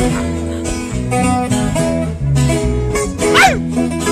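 Instrumental break of a live corrido: guitars picking and strumming a melody over a steady bass line. A brief high sliding sound falls sharply in pitch a little over three seconds in.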